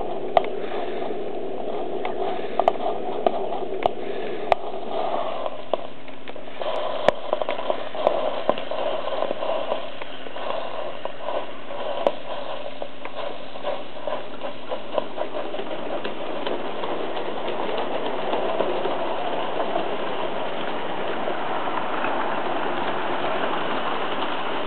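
Live-steam model locomotive running on its track: a steady hiss with occasional sharp clicks, the clicks mostly in the first several seconds.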